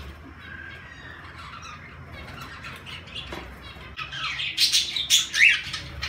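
Cockatiels and budgerigars calling in an aviary: soft chirping and chatter, then a burst of loud, harsh squawks in the last two seconds, one of them rising in pitch.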